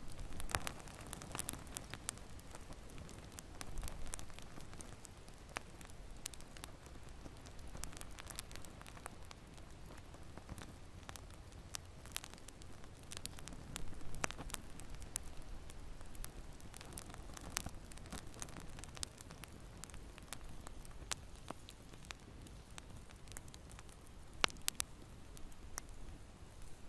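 Wood fire burning in a fireplace: a low steady rumble of flames with irregular sharp crackles and pops, a couple of louder pops around the middle and near the end.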